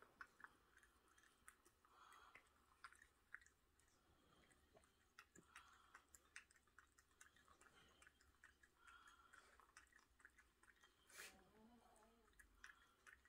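A Shiba Inu licking a cat's fur: faint, irregular wet clicks and smacks of its tongue, with one louder click about eleven seconds in.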